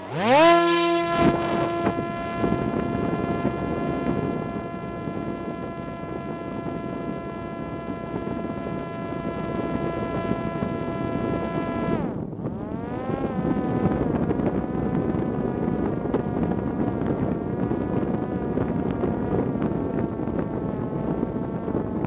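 Parrot Disco fixed-wing drone's electric motor and propeller, heard from a camera on the airframe: it spins up within the first second at launch into a steady high whine for the climb. About twelve seconds in, as the drone levels off at altitude, the pitch drops and then wavers up and down with the throttle, over rushing wind noise.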